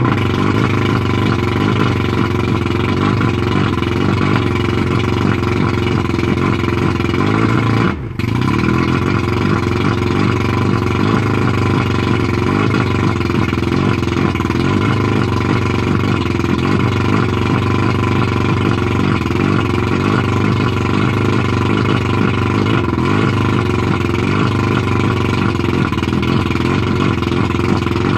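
1989 Mercury 100 two-stroke outboard motor running steadily at a fast idle of roughly 1200–1400 rpm, with a momentary break in the sound about eight seconds in.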